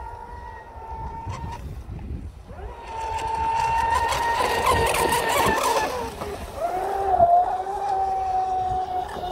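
Brushless electric RC speedboat running flat out: a high, steady motor whine. It dips briefly about two seconds in, then grows louder with a hiss of spray from about three to six seconds in, before whining on at a slightly lower pitch.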